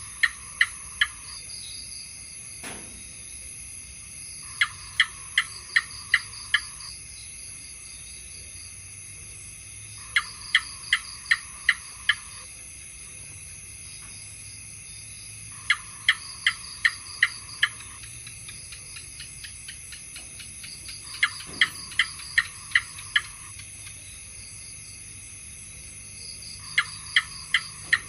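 House gecko calling in repeated bouts of five or six quick, sharp chirps, a new bout about every five and a half seconds. Behind them runs a steady high-pitched insect drone.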